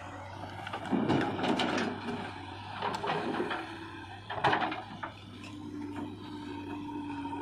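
JCB 3DX backhoe loader digging with its bucket: the diesel engine runs steadily under bursts of scraping and clattering as the bucket works through dry soil, loudest about a second in and about four and a half seconds in. A steady whine starts about two seconds before the end.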